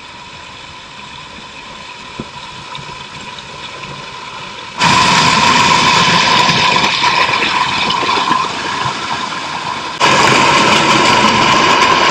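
Steady rushing noise of wadi water flowing over rocks. It jumps abruptly much louder about five seconds in, eases slightly, then jumps up again around ten seconds.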